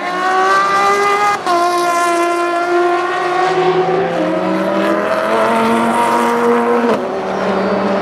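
Race car engine accelerating hard out of a corner, its pitch climbing and then dropping sharply at gear upshifts, about a second and a half in and again near the end.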